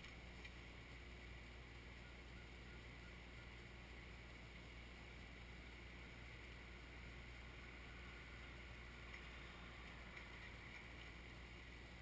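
Kioti 3054 compact tractor's diesel engine running steadily, heard faintly from far off as a low, even hum.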